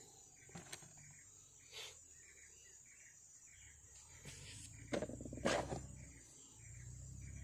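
Insects buzzing steadily at a high pitch, with a few sharp knocks and rustles from handling, the loudest two about five seconds in.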